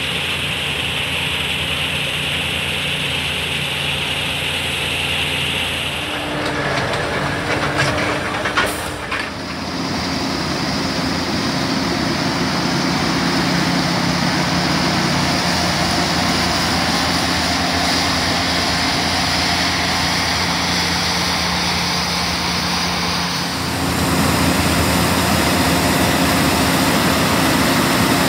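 New Holland CX8.85 combine harvester running steadily under load, cutting and threshing barley: a constant engine drone and machinery whir. The mix of tones shifts abruptly a few times, with a brief clatter about eight or nine seconds in.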